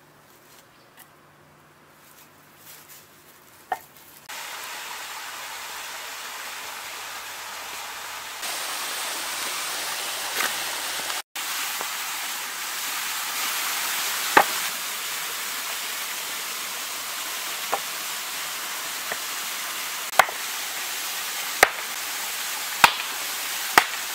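An axe splitting small pieces of wood on a log chopping block: a series of sharp knocks, coming closer together near the end. Under them runs the steady rush of a small waterfall, which comes in a few seconds in.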